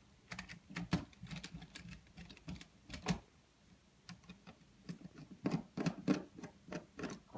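Hands handling wires and the plastic housing of an opened Pisector alarm control panel, making a run of irregular small clicks and taps. The loudest click comes about three seconds in.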